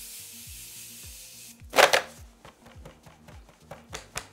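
Pump-spray bottle of Morphe setting spray misting onto the face: a steady hiss lasting about a second and a half. About two seconds in comes a loud, short burst, followed by a scatter of light clicks and taps.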